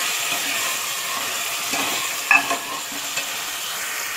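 Mutton pieces sizzling as they are browned in hot oil in an aluminium pressure cooker, stirred with a metal ladle that clinks against the pot a few times, loudest about two seconds in.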